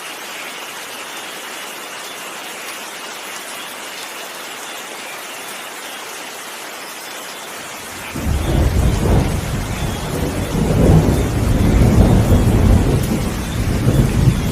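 Steady rain falling, then about eight seconds in a loud rolling thunder rumble sets in suddenly and keeps rumbling under the rain to the end.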